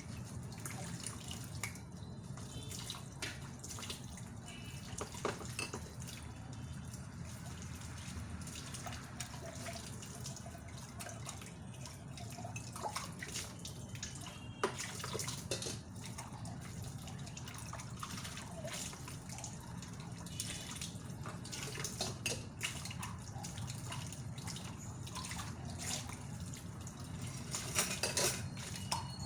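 Water from a kitchen tap running and dripping in a sink as dishes are rinsed, with scattered clinks and knocks of dishes being handled, busiest near the end.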